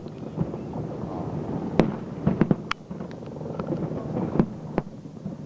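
Aerial fireworks bursting: a run of sharp bangs close together about two seconds in, then two more near the end, over a continuous low din.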